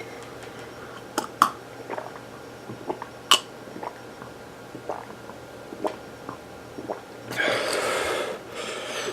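Mouth sounds from a person suffering chili burn: scattered small clicks and smacks of chewing and lips, then, about seven seconds in, a long forceful breath through the mouth lasting about a second, followed by another shorter breath.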